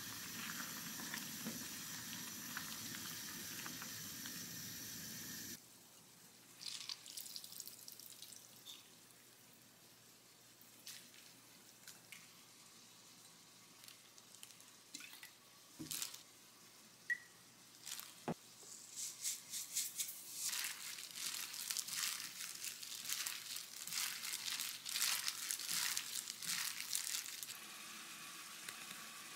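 Spinach doenjang soup simmering in a saucepan on a gas burner, a steady hiss that cuts off after about five seconds. A quiet stretch with a couple of sharp clicks follows, then a plastic-gloved hand tossing chopped cabbage in a glass bowl, dense crinkling and crackling for several seconds. The simmering hiss returns near the end.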